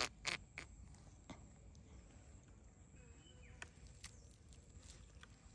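A few sharp, scattered clicks and knocks over a quiet low background, two of them close together right at the start and the rest spaced out.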